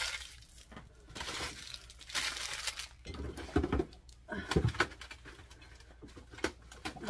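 Plastic bags crinkling and food containers knocking as items are moved about and taken off refrigerator shelves, in short irregular bursts.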